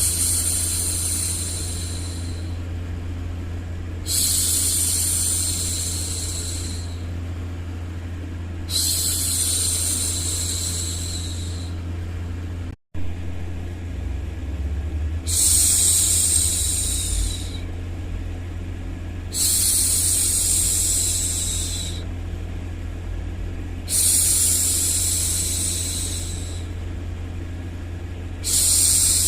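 A woman's voice making long, soft 'shhh' hushing sounds, repeating about every four and a half seconds, over a steady low hum. The sound cuts out for an instant about halfway through.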